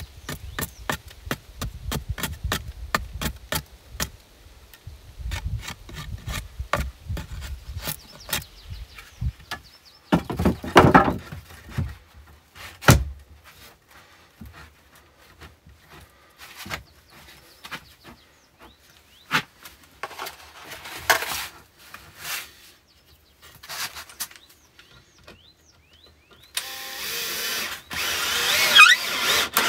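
A hatchet hews the edge of a pine board in many quick, light strokes. Wooden boards are then knocked and set into place, with a heavier thud about thirteen seconds in. Near the end a green Bosch cordless drill-driver runs, its pitch wavering as it drives a screw into the board.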